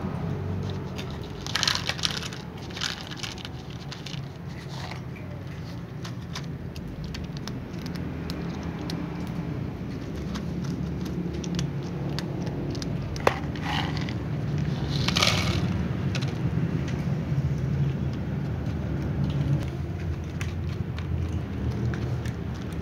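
A cat crunching dry kibble from a small plastic bowl, with short bright rattles of food being tipped from a plastic cup near the start and another about fifteen seconds in, over a steady low rumble.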